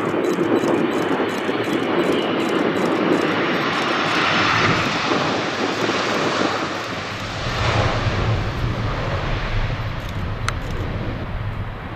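Boeing 767-300F freighter landing: steady jet engine noise just after touchdown and through the rollout on the runway. About eight seconds in, a deeper rumble swells up, then fades toward the end.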